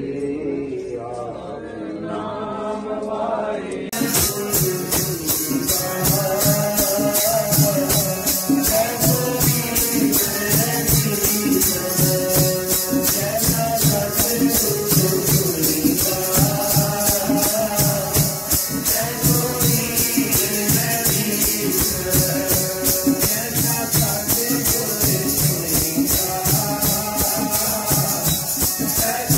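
A group sings Sikh devotional kirtan in chorus. About four seconds in, a cut brings in a louder passage where the singing runs over a steady, fast jingling rhythm from chimtas, the long iron tongs fitted with jingles.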